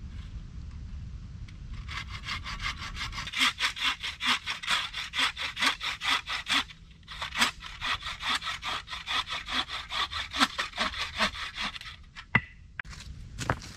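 Hand saw cutting through a length of wood held in a wooden sawbuck, in a steady rhythm of quick back-and-forth strokes with a brief pause about halfway. The sawing stops about twelve seconds in, followed by a couple of sharp knocks.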